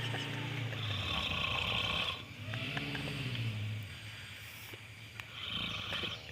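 A person snoring in heavy breaths: a long droning snore, a second whose pitch rises and then falls, and a shorter, hissier one near the end.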